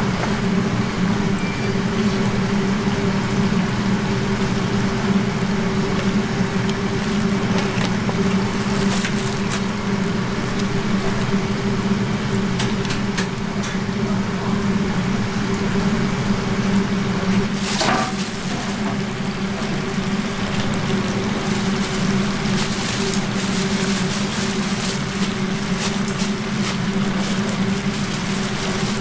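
Steady low machine hum and hiss of a busy street-food kitchen, with a few light clicks of metal tongs and utensils.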